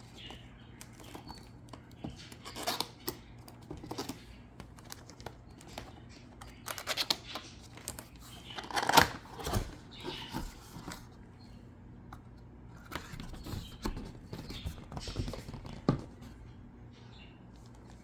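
A cardboard product box being opened and its contents unpacked by hand: irregular clicks, scrapes and rustles, the loudest flurry about nine seconds in.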